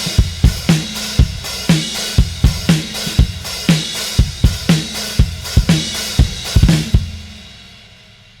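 Sampled acoustic drum kit from the EZdrummer 3 Custom Shop EZX library playing a steady groove of kick, snare, hi-hat and cymbals. The beat stops about seven seconds in and the cymbals ring out and fade.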